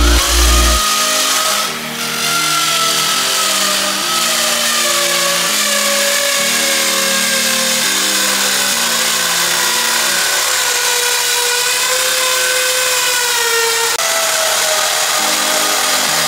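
Electric drill running steadily while it bores holes into the ceiling, its motor whine wavering in pitch as the bit bites, with a hiss of drilling on top. Background music plays underneath.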